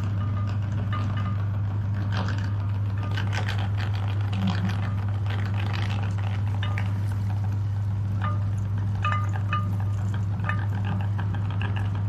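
Electric meat grinder motor running with a steady low hum, with scattered small clicks and crackles as slime is forced through it.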